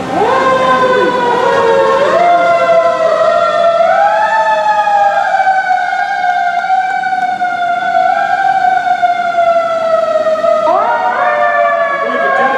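Several fire engine sirens sounding together. They wind up one after another in the first few seconds, then wail with their pitch sliding slowly down, and one winds up again near the end.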